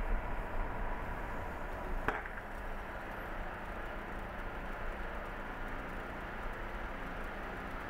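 A car idling while stopped, a steady low rumble with faint road ambience. There is a single sharp click about two seconds in.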